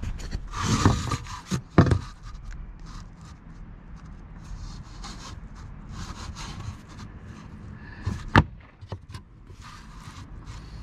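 Handling noise from siding work: rubbing and scraping against the wall boards, with a sharp knock about two seconds in and a louder one about eight seconds in.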